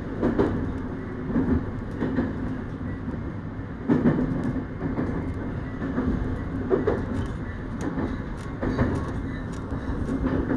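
JR East 701 series electric train running, heard from inside the carriage: a steady rumble and hum, with the wheels knocking over rail joints every second or two.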